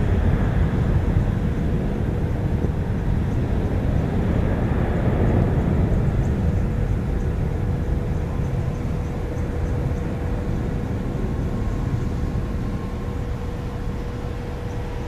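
Jet engines of a Boeing 767-300 freighter climbing away after takeoff: a deep, steady rumble that slowly fades as the aircraft departs.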